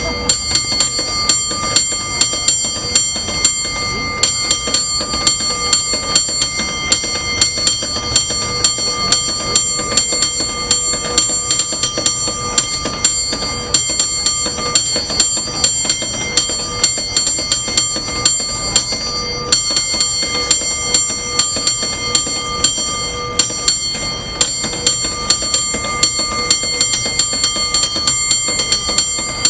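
San Francisco cable car bell rung in quick, syncopated rhythms: a bright clanging ring struck several times a second, the tone carrying on between strokes. There are short breaks in the pattern about 4, 14 and 20 seconds in.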